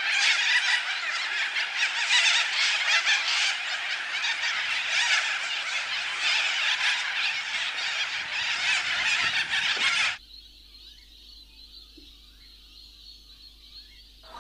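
A loud, dense din of many animal calls at once, like a flock of birds, that cuts off suddenly about ten seconds in and leaves only faint sound with a few faint chirps.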